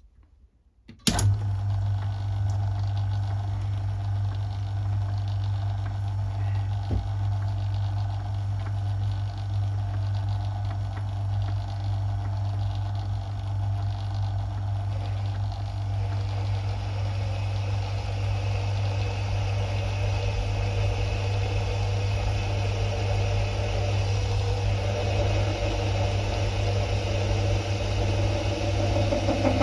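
Metalworking lathe starting up about a second in and running steadily with a deep motor hum, while a large twist drill in the tailstock bores into a steel workpiece. The cutting noise grows louder and harsher over the last dozen seconds as the drill goes deeper.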